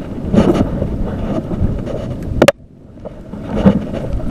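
Wind buffeting the microphone with a rough, uneven rumble, over water and boat noise, with rustling bumps of handling as the rod is cast. About two and a half seconds in there is a sharp knock, after which the sound cuts out briefly and then returns.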